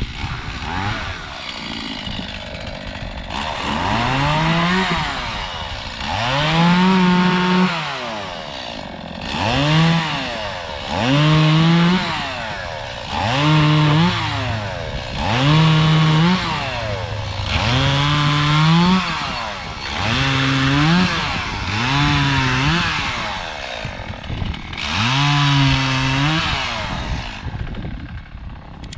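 Chainsaw revving up and cutting in repeated short bursts, about ten times, roughly every two seconds: the pitch climbs to full speed, holds through the cut, then drops back to idle between cuts.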